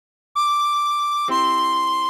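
Tin whistle playing a high D, then stepping down to C about a second later. As the C sounds, a held C major chord on keyboard comes in underneath.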